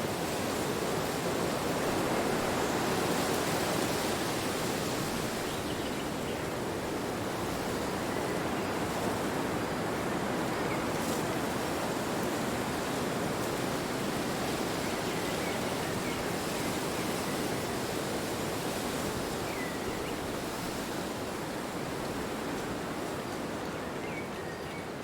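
Wind blowing: a steady rushing noise that swells a few seconds in and slowly eases toward the end.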